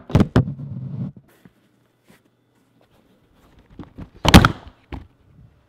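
Knocks and thumps of a Pelican 1510 hard plastic case being handled: two sharp knocks at the start with a rumble lasting about a second, then a loud knock about four seconds in and a smaller one half a second later.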